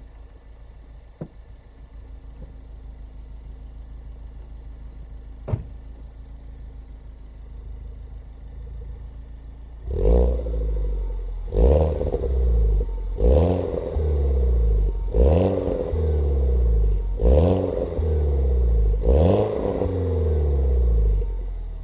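2007 Mini Cooper S (R56) 1.6-litre turbocharged four-cylinder idling through its stock exhaust, with two sharp cracks in the first half. From about ten seconds in it is revved in six quick blips, each rising and then falling back to idle with a burble on the overrun.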